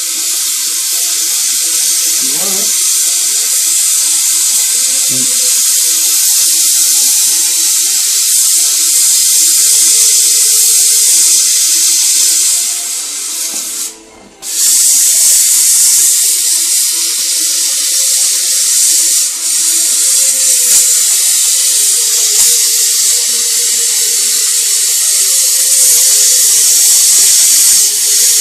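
Gas torch flame hissing steadily as it melts lead to fuse the plate lugs of a lead-acid battery cell into a connecting strap. The hiss breaks off briefly about halfway through, then comes back.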